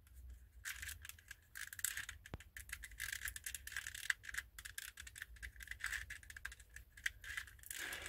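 Faint, irregular clicking and rattling of a 2x2-based twisty-puzzle chess king being turned by hand, its puzzle pieces knocking against each other as the bottom layer is solved.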